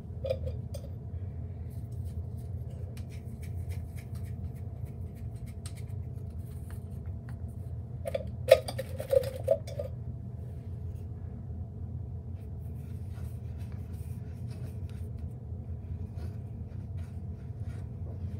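Light clicks, scrapes and small knocks from handling PVC fittings and the primer can off-camera, with a short cluster of sharper knocks about halfway through, over a steady low hum.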